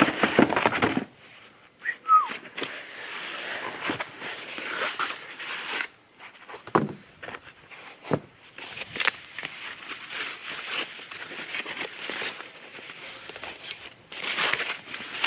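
Cardboard box being opened and its packaging handled: irregular rustling and crinkling with scattered small knocks.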